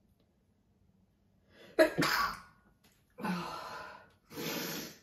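A woman's sharp, breathy gasps as she builds up to a sneeze: three gasps, the first about two seconds in and the loudest. The sneeze does not come.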